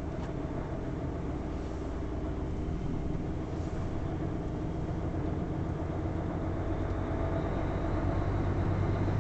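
Steady engine and road noise of a vehicle driving slowly, heard from inside the cab: a low hum that grows a little louder over the last couple of seconds.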